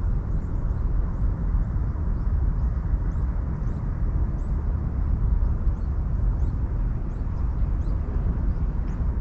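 Outdoor rumble, heaviest in the low end and wavering in level, of wind buffeting the microphone. Faint short high chirps repeat about twice a second above it.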